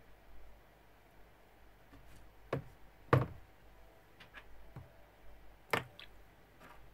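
A few sharp knocks and clicks as greasy metal bicycle hub parts, the axle and small nuts and cones, are set down into a plastic tub of soapy water. The loudest knock comes about three seconds in and another near six seconds.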